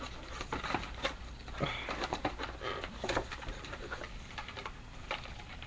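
Rustling and clicking of packaging and phone accessories being handled: a run of short irregular crinkles and light clicks.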